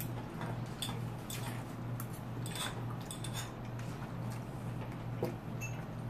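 Forks tapping and scraping on plates during a meal: scattered light clicks every half second or so, over a steady low hum.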